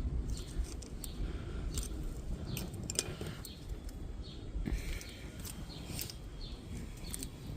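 Scattered light metallic clicks and scrapes from parts being worked on at a car's front brake caliper, over a low steady rumble. Small birds chirp now and then in the background.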